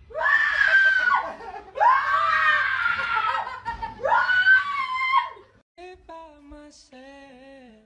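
A woman screaming: three long, high-pitched screams. A quieter, lower voice follows near the end.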